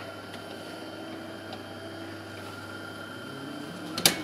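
Whirlpool ACE 102 IX built-in coffee machine running an internal cycle: a steady mechanical hum with a faint whine. A sharp click sounds near the end.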